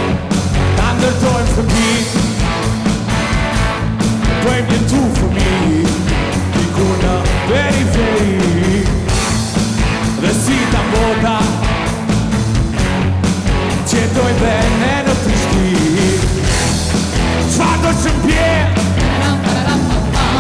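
Live rock band playing, with drums keeping a steady beat under electric guitars and bass.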